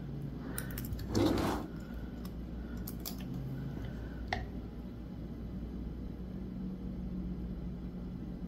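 Small handling sounds as a cork key fob end and its metal hardware are positioned in a hand press: a brief rustle about a second in, then a few light clicks and taps, the sharpest with a short metallic ring about four seconds in.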